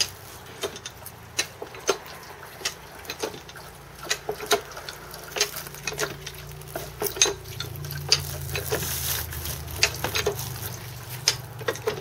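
Freshly pressed Cabernet Sauvignon wine running from a basket grape press into a plastic bucket lined with a straining bag: a trickle with irregular sharp drips and clicks.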